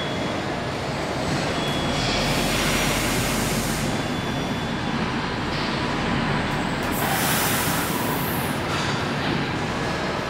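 Factory-floor machinery noise: a steady mechanical rumble and hum, with two longer bursts of air hiss, one about two seconds in and one about seven seconds in.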